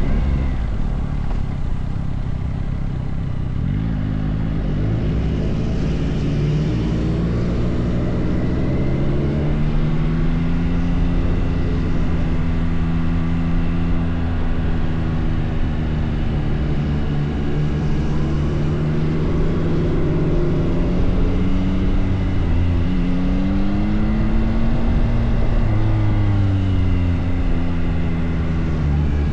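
Yamaha R9 motorcycle's three-cylinder engine running, its pitch rising and falling several times as the revs change.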